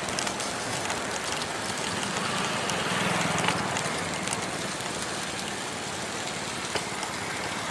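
Steady rushing noise of riding along a road: wind on the microphone mixed with road noise, with a faint low hum and a few light clicks.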